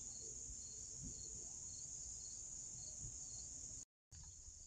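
Insects chirping steadily in a high, even chorus, with a fainter chirp repeating about twice a second; the sound drops out for a moment near the end.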